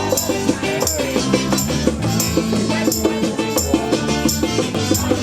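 Rocksteady band playing an instrumental passage of a song: bass, pitched instruments and drums, with drum and cymbal hits on a steady beat.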